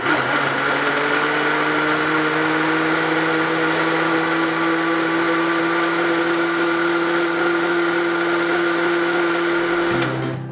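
Singer countertop blender motor running steadily at speed, blending pineapple chunks and orange pieces with juice into a liquid drink, then switching off about ten seconds in.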